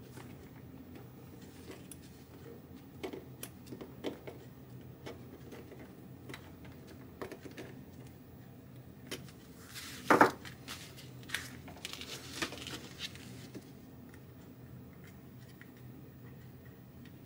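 Small clicks and taps of needle-nose pliers and a solid-core wire being worked on a copper-clad circuit board, with one louder knock about ten seconds in.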